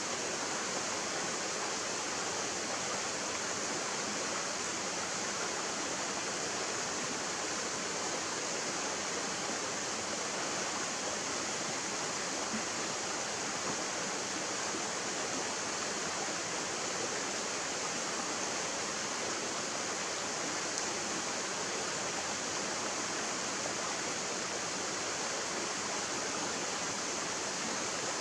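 Shallow stream running over rocks and small riffles: a steady, unbroken rush of water.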